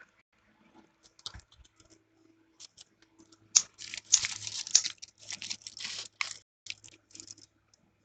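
Irregular scratchy clicks and rustles close to the microphone, thickest in the middle and stopping near the end.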